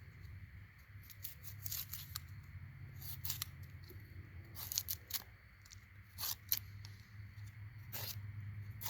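Soft, rotten, ant-eaten wood being scraped and torn away to clean it down to sound wood: irregular short scrapes and crackles.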